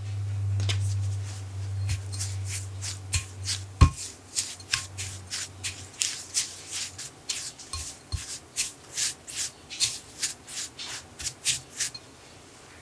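Silicone spatula stirring and scraping graham cracker crumbs and melted butter against a glass bowl, in quick repeated strokes about two to three a second. A low rumble runs through the first few seconds, and there is a single sharp knock near four seconds in.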